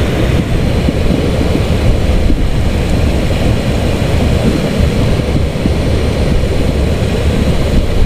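Fast-flowing river water rushing over rocks and a small waterfall: a loud, steady rush with a deep rumble underneath.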